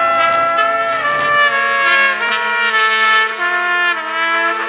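Film score music: several held notes sounding together in slowly changing chords, with a steady low note coming in about a second and a half in.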